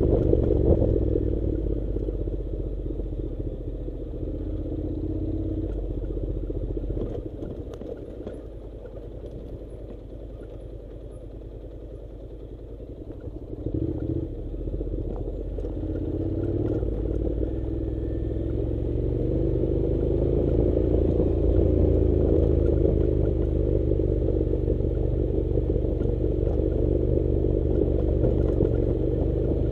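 Honda NC700 parallel-twin engine running as the motorcycle rides a gravel track, with some light clatter. The engine eases off and gets quieter for several seconds in the middle, then picks up again from about halfway on.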